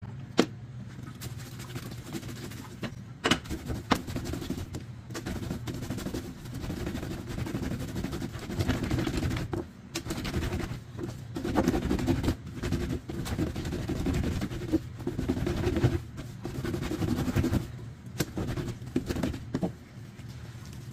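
A wet, oily terry-cloth rag scrubbed by hand against a ribbed washboard: continuous rough rubbing with many sharp knocks and clicks as the cloth and hands strike the ribs.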